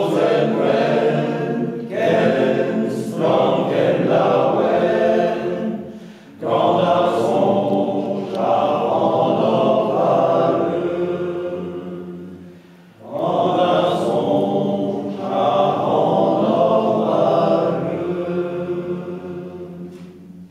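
Men's choir singing a Breton song a cappella in three long phrases, with brief breaks about six and thirteen seconds in. The last phrase fades away near the end as the song closes.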